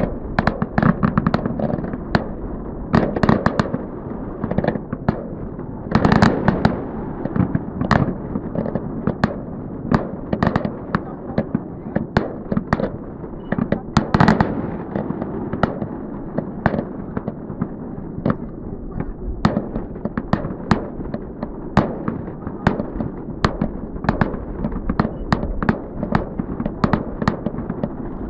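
Fireworks going off in a continuous barrage: many sharp bangs and crackles in quick succession over a steady low rumble.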